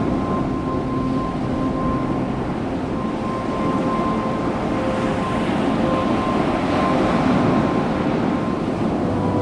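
Ocean surf and wind on the microphone, a steady rushing noise, with faint background music holding long notes under it.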